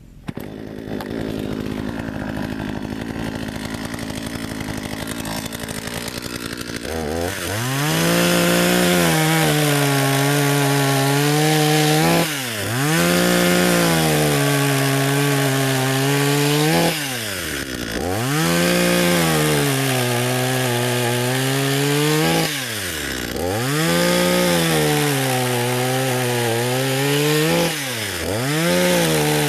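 Bluemax 45cc two-stroke chainsaw running, lower for about the first seven seconds, then revving up high while cutting wood. Four times, about every five seconds, the engine note drops briefly and climbs straight back to full speed, as the throttle is let off and squeezed again between cuts.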